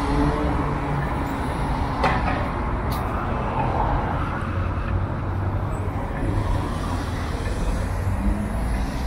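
Street traffic at a city crossing: cars and a van driving past, engines running and tyres on the road. Two short clicks come about two and three seconds in.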